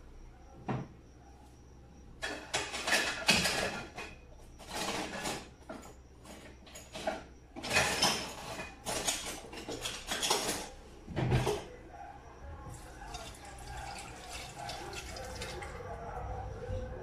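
Water from a kitchen tap splashing into a sink in a run of loud, uneven surges, as something is washed under it. It turns softer and steadier for the last few seconds. A single knock sounds about a second in.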